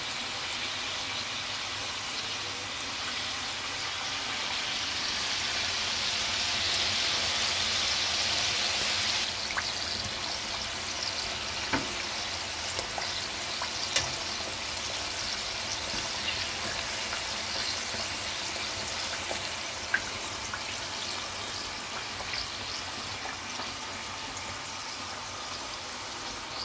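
Samosas deep-frying in a pot of hot oil: a steady sizzle that swells for a few seconds near the start, then settles. A few light clicks sound over it.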